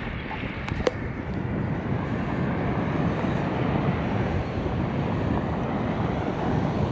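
Steady rushing of wind buffeting the microphone while riding a bicycle, with a couple of light clicks just under a second in.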